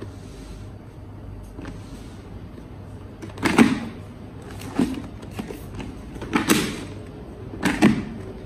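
An LS2 Valiant II flip-over helmet's chin bar and visor being swung and latched by hand: four sharp plastic clicks and snaps, roughly a second or more apart, starting about three and a half seconds in.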